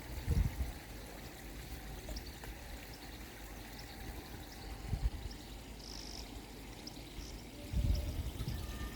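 Water pouring and trickling steadily into a koi pond, with a few short low bumps on the microphone.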